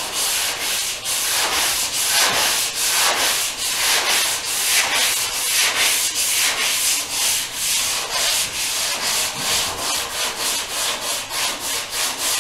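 Hand sanding block with sandpaper rubbed back and forth over the primed steel roof of a 1962 Cadillac, in quick even strokes about three a second. This is block sanding of a black guide coat, which is sanded until the black is gone.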